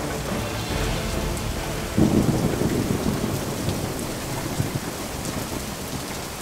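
Steady heavy rain, with a thunderclap about two seconds in that rumbles away over a second or two.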